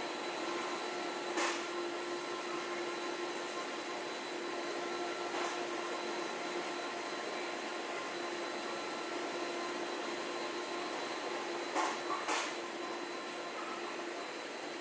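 A steady motor whir with a constant hum, broken by a few short clicks.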